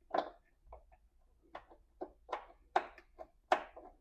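Socket wrench on long extensions clicking and clinking against metal in a series of short, irregular clicks, as the battery hold-down bolt is worked at the bottom of the tray.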